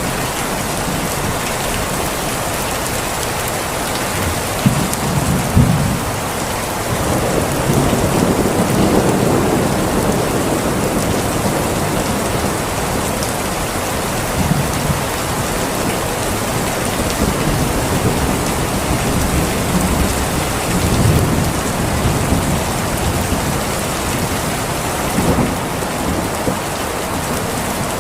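Steady heavy rain falling, with low rolls of thunder swelling and fading several times.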